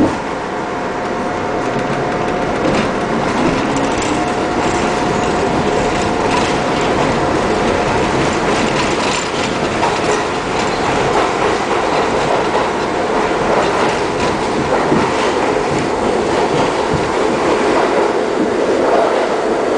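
New York City Subway #7 train heard from inside the car as it runs through a tunnel: a steady rumble of wheels on rail with clicking over the rail joints, growing louder over the first few seconds.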